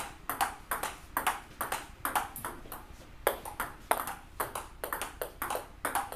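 Table tennis rally: the ping-pong ball clicks off the rackets and the table in a quick, steady alternation, about three hits a second.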